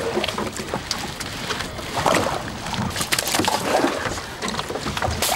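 Water splashing and slopping with irregular knocks against the hull of a small open fishing boat as a Humboldt squid is hauled aboard on a hand-line jig.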